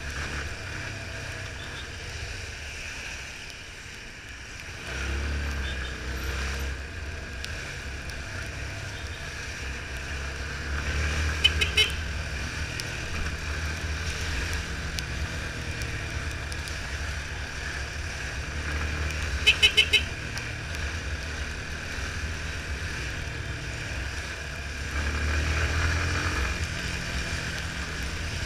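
Yamaha Fazer 250's single-cylinder engine running under a steady rush of wind and road noise, picking up as it accelerates about five seconds in and again near the end. Two quick series of short horn toots, about twelve and twenty seconds in, are the loudest sounds.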